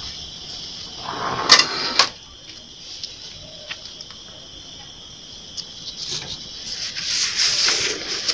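Crickets chirring steadily in the background. About a second in comes a burst of rustling with two sharp clicks, and near the end there is more rustling handling noise.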